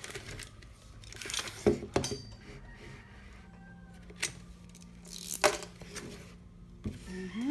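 Hard clinks and knocks from a die-cast metal gumball bank's parts being handled and forced: a handful of sharp strikes at irregular intervals.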